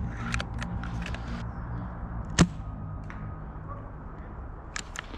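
A single sharp crack of an airsoft rifle shot about two and a half seconds in, over quiet background music, with a few faint clicks around it.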